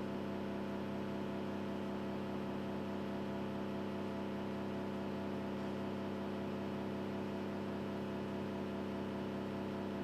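A steady electrical hum, a strong low tone with a stack of higher tones above it, unchanging and with no breaks.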